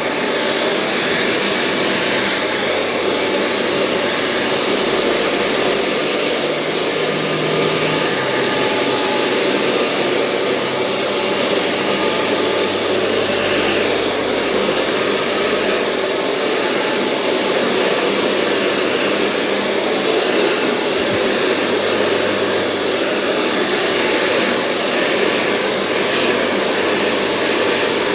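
Professional hair dryer running steadily, blowing a loud rush of air, its hiss changing a little every few seconds.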